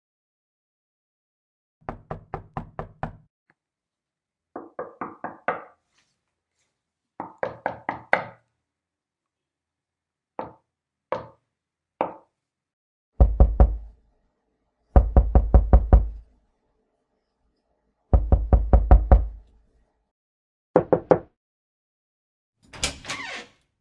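Knocking on a door in a string of separate takes: three quick runs of five or six light raps, then three single knocks, then three louder runs of heavy, booming knocks and a double knock. Near the end a longer, rougher sound starts.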